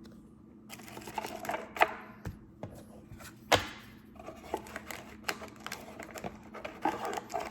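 Pokémon trading cards being handled and set down on a table: scattered light clicks and rustling, with two sharper taps about two seconds and three and a half seconds in.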